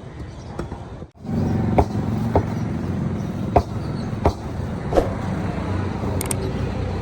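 Butcher's cleaver chopping beef: several sharp strikes, one every half-second to a second, over a steady low hum.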